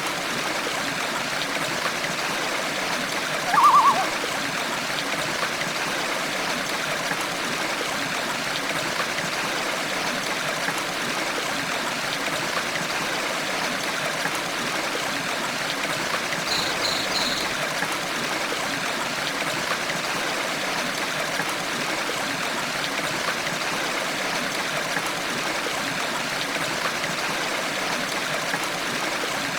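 A stream babbling steadily. A short bird call, the loudest moment, comes about three and a half seconds in. Three quick high chirps come about seventeen seconds in.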